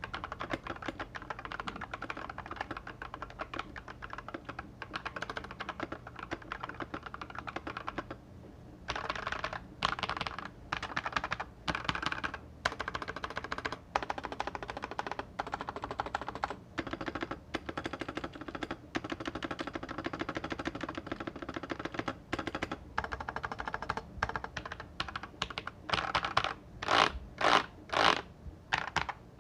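Fast typing on a stock JKTECH 87-key mechanical keyboard with Akko Matcha Green switches in Outemu hot-swap sockets, a quick run of key clacks. It breaks off briefly about eight seconds in, and near the end gives way to slower, louder single keystrokes about two a second.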